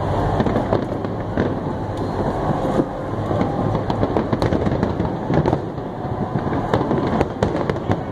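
Fireworks display: a dense, continuous run of bangs and crackles over a steady rumble.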